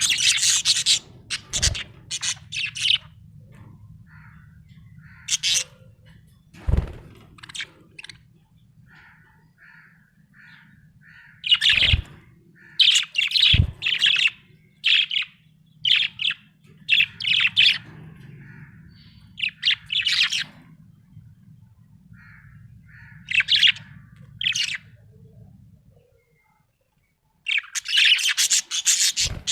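Budgerigar chirping in short, irregular bursts of high chatter, with a few sharp clicks in between.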